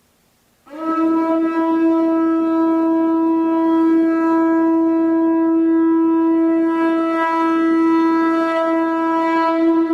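Conch shell trumpet blown in one long, steady note that starts about a second in.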